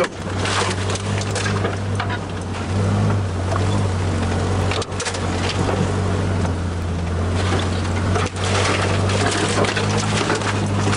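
1984 Datsun/Nissan pickup's engine running steadily as it drives a rough trail, heard from inside the cab, with tree branches scraping and brushing along the body and windshield.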